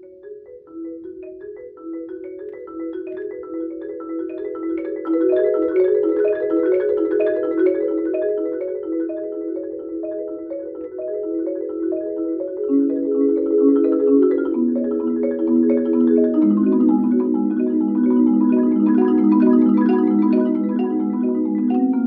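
Marimba duet played by two players on a single marimba: dense, quick mallet notes swell from soft to loud over the first few seconds. From about halfway through, a lower part enters and steps down in pitch.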